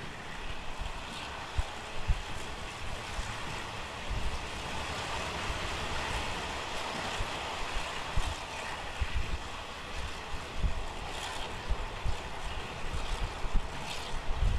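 Running noise of a Taiwan Railway non-air-conditioned ordinary-class passenger coach at about 75–80 km/h: a steady rush of wheels and air, with frequent low wind buffets on the microphone.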